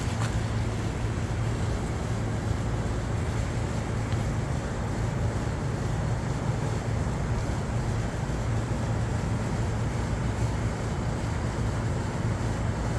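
A steady low hum of a running engine over a constant background rush, unchanging throughout.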